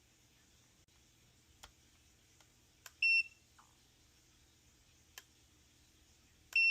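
Multimeter continuity beeper testing a soldered wire repair on a control board. There are a few light probe clicks, a short high beep about three seconds in, then a steady beep starting near the end as the probes bridge the repair. The steady tone shows continuity: a good connection.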